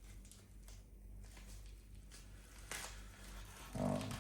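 Small parcel packaging being handled and opened: faint rustling and light clicks, with one louder scrape of packaging about two-thirds of the way in.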